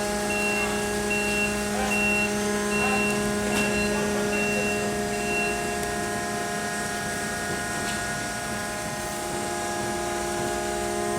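Recycling baler machinery running with a steady hum, while a high warning beeper sounds about twice a second and stops about halfway through.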